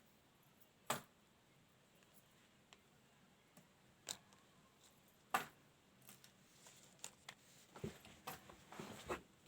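Handling noise from a phone and its packaging: a few sharp, isolated clicks and taps, then a quick run of small clicks and rustles near the end.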